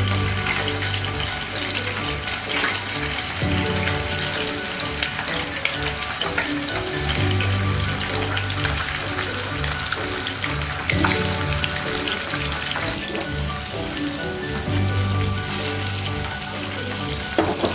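Semolina-and-cornflour-coated amudi fish pieces frying in hot oil: a steady crackling sizzle, with background music underneath.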